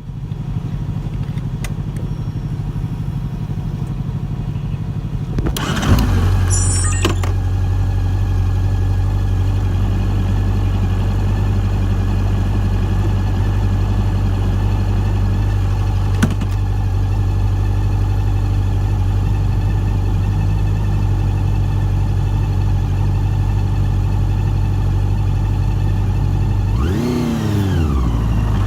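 Honda CB400's inline-four engine through a TSR E02 slip-on exhaust, idling steadily. A short sharp knock about six seconds in, after which the idle is louder; near the end the revs rise and fall as the bike gets under way.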